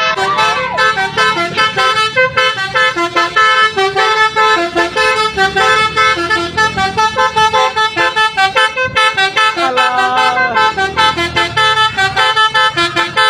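Multi-tone telolet horn of a Tunggal Jaya bus playing a fast tune of short, rapidly changing notes, about four a second, over a low rumble.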